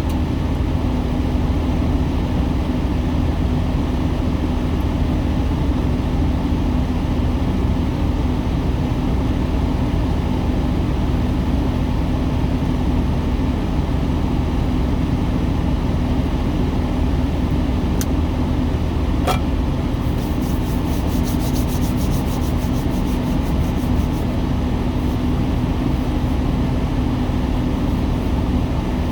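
Steady drone inside a semi truck's cab: the idling diesel engine with the heater blower on max, an even low hum throughout. A couple of sharp clicks come a little past the middle.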